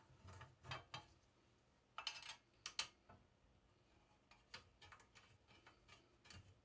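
Faint clicks and scrapes of the ProEdge sharpener's safety guard being fitted and screwed back into place, a few short handling sounds with a louder pair about two seconds in.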